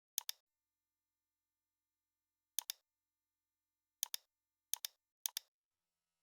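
Computer mouse clicks: five quick double ticks, each a button press and release, with dead silence between them.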